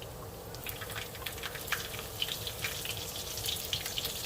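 Chopped garlic sizzling and crackling in hot rendered pork fat in a pan, the dense popping starting about half a second in as it goes in to be sautéed.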